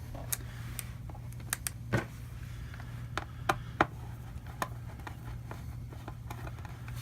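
Scattered clicks and taps of hands working on a plastic laptop case, over a steady low hum.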